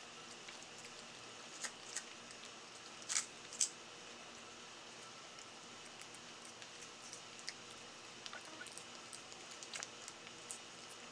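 Siamese cat licking purée from a squeeze-tube treat: soft, irregular wet tongue clicks and smacks, with two louder ones about three seconds in, over a faint steady hiss.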